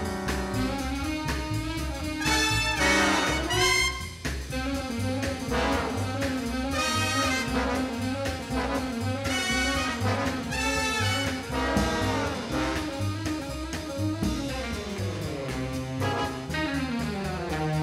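Background music: a jazzy brass tune over a steady bass beat.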